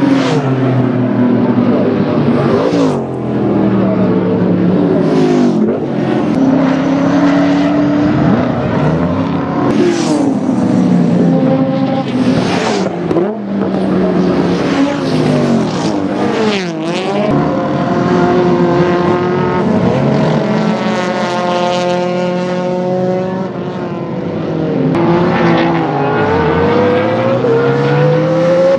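Race cars' engines at full throttle as a pack goes past in turn. Several overlapping engine notes rise with revs and step down at gear changes, and each one drops in pitch as a car passes.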